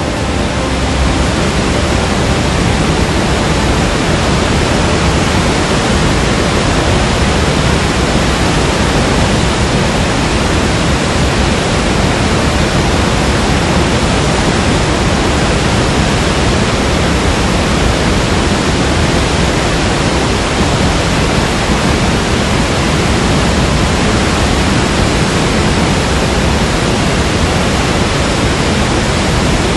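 Flowing water: a loud, steady rush that does not change.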